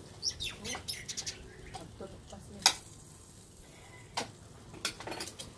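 Scattered clicks and clinks of cooking utensils and pans at a grill, the sharpest about two and a half seconds in.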